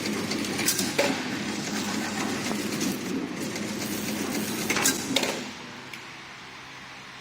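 Incense-stick packing machine running briefly, a fast mechanical rattle with sharp clacks about a second in and again near five seconds, stopping abruptly about five and a half seconds in.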